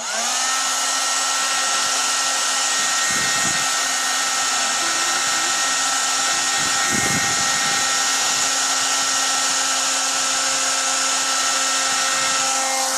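Handheld hair dryer switched on, its motor whining up to speed within a moment, then blowing steadily to dry a glue coating.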